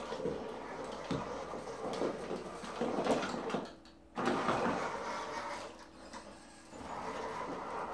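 A 1/8-scale electric RC buggy's 5065 320kv brushless motor, driven by a VESC, whirring as the buggy climbs over rubber tires and drives on a hard floor, with the rough scrub of its tires. The sound cuts out briefly about four seconds in, then comes back.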